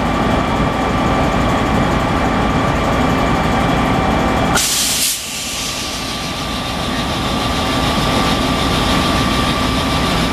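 WAP7 electric locomotive running with a steady hum and a thin whine. About halfway through comes a sudden half-second burst of compressed-air hiss from the air-brake hoses being coupled between locomotive and coach.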